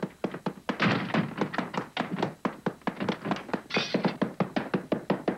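Rapid, steady thumping, about six knocks a second, from a child pounding and kicking at a wooden floor in a tantrum, with a brief hissing burst near the middle.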